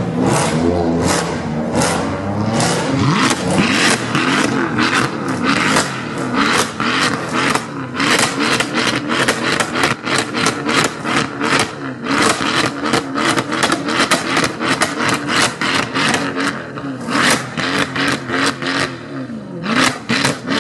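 Mercedes C63 AMG V8 revved hard in rapid, repeated throttle blips while standing still. Each blip gives a sharp bark from the quad exhaust, about four a second, with a few short breaks.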